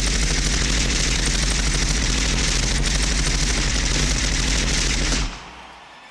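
Rapid automatic gunfire in one long continuous burst, loud and even, stopping suddenly about five seconds in.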